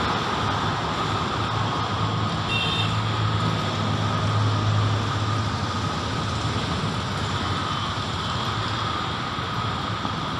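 Road traffic on a wide city road: a steady rush of passing vehicles, with one engine's low drone swelling about four to five seconds in. A brief high chirp sounds about two and a half seconds in.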